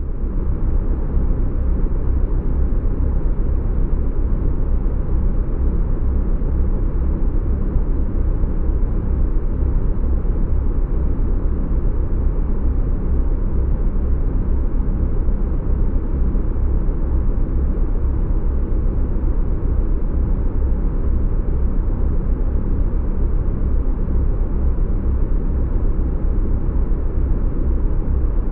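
Spaceship sound effect: a deep, steady engine rumble that fades in quickly at the start and then holds level.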